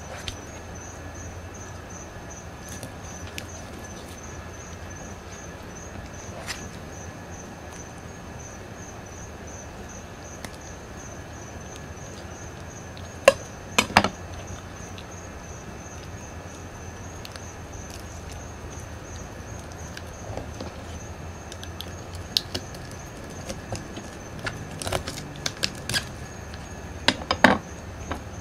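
A yellowtail snapper being cleaned on a plastic cutting board: two sharp knocks about halfway through, as the filleting knife is laid down on the board, then scattered clicks and taps near the end as the fish is handled and gutted by hand. A steady high insect trill runs underneath.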